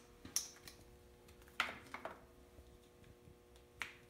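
A few light clicks and knocks of hands handling parts on a tubing notcher, the loudest about one and a half seconds in, over a faint steady hum.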